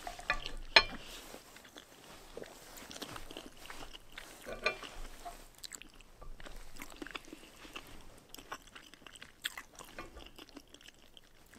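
Close-miked chewing of spicy instant noodles and rice cakes: soft wet mouth sounds with scattered light clicks.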